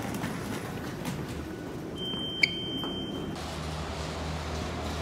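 Transit fare gate's card reader sounding one steady high beep, about a second long, as a fare card is tapped, with a single sharp click partway through. Low station rumble comes before it and even street-traffic noise after.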